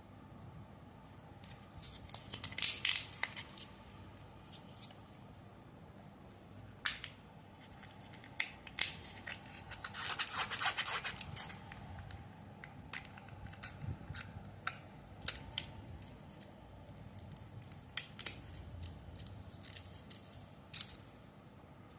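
Kinder Joy egg packaging being unwrapped and handled: scattered crinkles, clicks and tearing, with two longer crackly rustling stretches about three seconds in and about ten seconds in.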